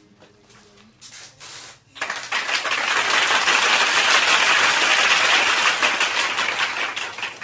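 Bundle of plastic zip ties rattling and rustling against each other and their storage tube as a hand pulls at them: a loud, dense clatter that starts about two seconds in and lasts about five seconds.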